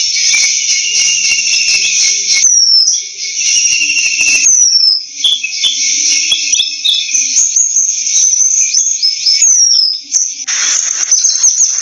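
Bird calling with a sharp falling whistle every two to three seconds and varied chirps and whistles between, over a steady high-pitched insect chorus. A brief noisy rush comes near the end.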